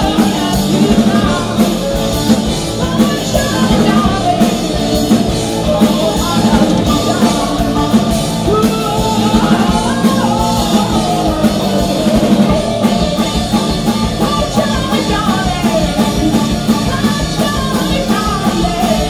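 Live psychedelic hard rock band playing: a woman singing lead over electric guitars, bass guitar and a drum kit.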